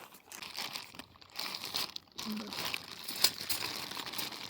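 Crinkling and rustling of plastic packaging being handled, with a sharp click about three seconds in.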